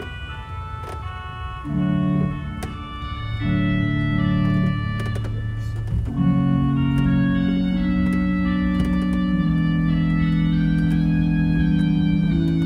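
Pipe organ playing slow, sustained chords on its Basson-Hautbois reed stop, the chords entering about two seconds in and held with little break to the end.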